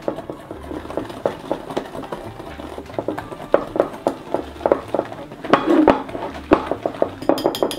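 Wire whisk stirring a thick batter in a metal mixing bowl, a fast irregular run of scraping, clicking strokes against the bowl. Near the end a few ringing metal clinks.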